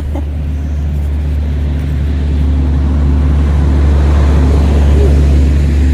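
Gasoline lawn mower engine running steadily and loudly, slowly growing louder as it comes closer.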